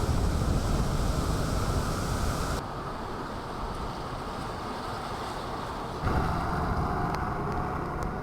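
Ocean surf with wind buffeting the microphone: a steady rushing noise that changes abruptly twice, about two and a half and six seconds in.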